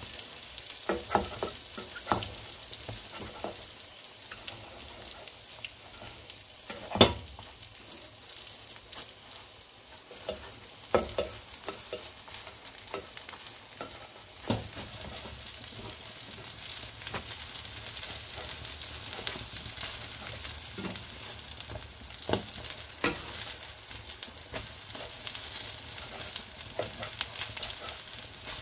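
Kaiserschmarrn batter sizzling in melted margarine in a frying pan while a slotted spatula chops and tears it into pieces. The spatula scrapes and knocks against the pan every few seconds, with the sharpest knock about seven seconds in.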